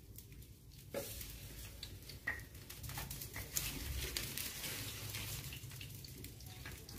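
Dry sticks knocking and scraping as they are pushed into a wood-fired stove, with the fire crackling and hissing from about a second in.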